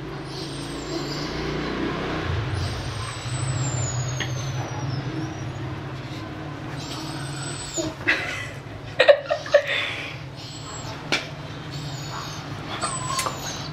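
A person slurping long strands of spicy instant ramen noodles close to the microphone, with thin whistling hisses as the noodles are sucked in, wet chewing, and a few sharp clicks in the second half.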